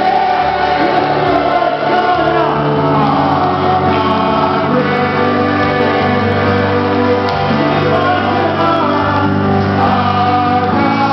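Church congregation singing a gospel worship song together, a crowd of voices on long held notes, with a male worship leader singing into a microphone.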